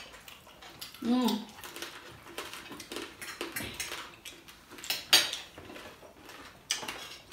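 Forks clicking and scraping on ceramic plates during a meal, with scattered taps and one sharper clink about five seconds in. A short hum from someone eating comes about a second in.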